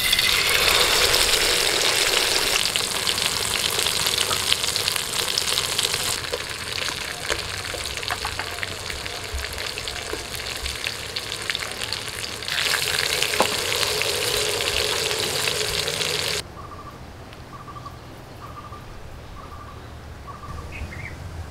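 A masala-marinated pomfret hitting hot oil in a metal kadai, sizzling loudly at once and then frying steadily with bubbling oil. About three-quarters of the way through the frying cuts off suddenly, leaving a quieter stretch with a short high note repeated several times at an even pace.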